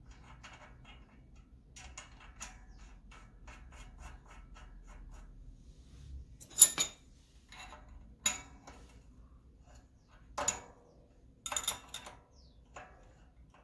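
Faint light ticking, then several sharp metallic clinks, the loudest about seven seconds in: pliers and the bicycle rear hub's axle and cone nuts being handled while the hub bearing play is adjusted.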